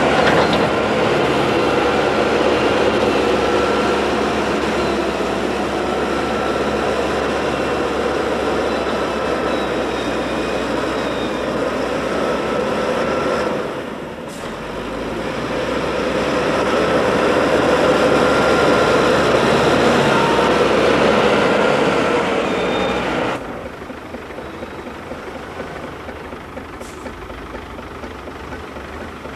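Heavy diesel machinery, a wheel loader, running hard while it pushes grass up a silage clamp. Its engine noise carries a couple of steady tones and dips briefly about halfway through. About six seconds before the end it drops to a quieter, steadier running sound.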